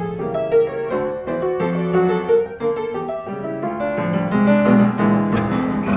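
Background piano music playing a melody of short notes.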